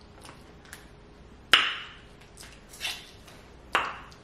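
Snow crab leg shells cracking and snapping as they are broken apart by hand. About five or six sharp cracks are spread through it, the loudest about one and a half seconds in and another near the end.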